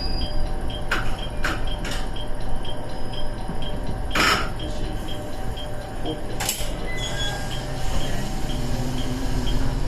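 KiHa 110 series diesel railcar running, heard from on board: a steady low rumble of engine and wheels, broken by several sharp clacks from the wheels and track.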